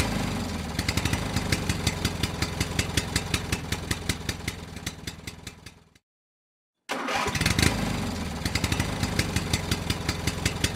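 A motorcycle engine starts and idles with a fast, even firing beat. It fades away and cuts to silence about six seconds in, then starts again about a second later and idles on.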